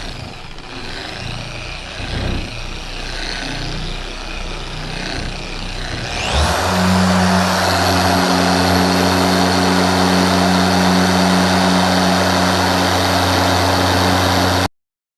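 Dual-action car polisher working compound on a pad, running at low speed at first, then spinning up about six seconds in with a rising whine and running steadily at higher speed. It cuts off abruptly near the end.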